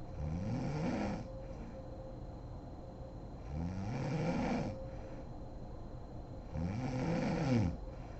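A sleeping woman snoring: three snores about three seconds apart, each about a second long, with a pitch that rises and then falls.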